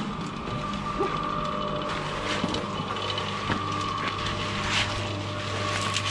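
Electric cement mixer running steadily, with a low hum and a high, even whine, and a few light knocks over it.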